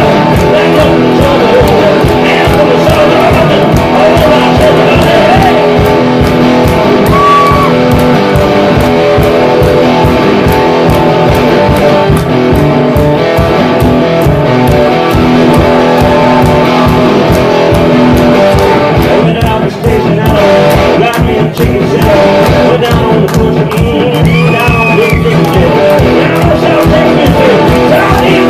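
Electric guitar played live and loud in a fast, driving rock-blues rhythm with a steady, rapid beat.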